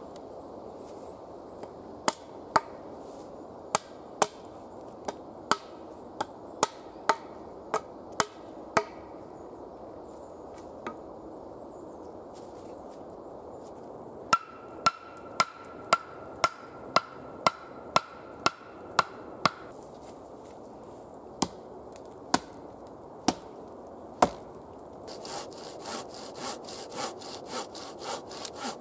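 A hand tool striking wooden poles in a series of sharp knocks. In the middle the knocks come at a steady two a second. Near the end they give way to a quicker run of short scraping strokes as a blade shaves a pole.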